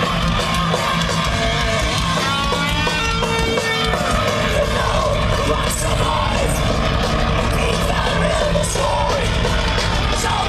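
Live thrash metal band playing loud through a festival PA, distorted electric guitars over the full band, heard from within the crowd.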